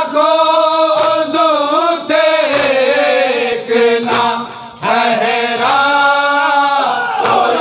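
A group of men chanting a noha, a Shia mourning lament, in unison. They draw out long held notes that bend up and down, with a couple of brief breaks for breath.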